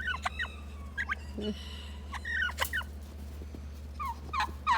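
Tom turkey gobbling several times, each gobble a quick run of falling notes, with a steady low hum underneath.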